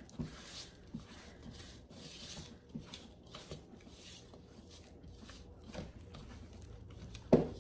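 Spatula stirring and scraping a sticky bread dough in a mixing bowl: irregular soft scrapes and squishes, with one sharper knock near the end.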